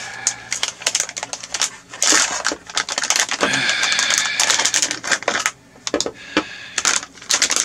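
A plastic wrapping bag crinkling and crackling as it is handled and opened, in rapid irregular crackles that are densest in the middle and thin out near the end.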